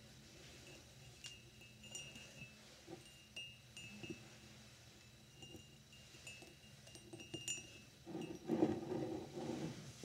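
Fingernails tapping a dimpled glass mug, about a dozen soft, irregular clicks, each with a short high ring. Near the end a louder rough scraping and rubbing of hands and glass on the wooden desk takes over.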